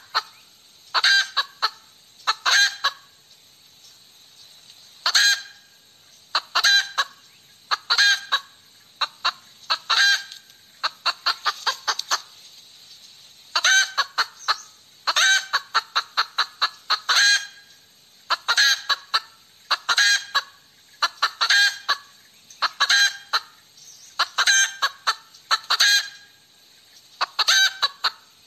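Hen cackling: groups of loud, sharp clucks repeating every second or two, with two short pauses along the way.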